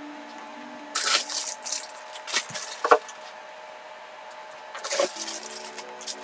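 Packaging being handled while a box is unpacked: rustling and crinkling of cardboard and plastic in several short spells, with a sharp crackle about three seconds in.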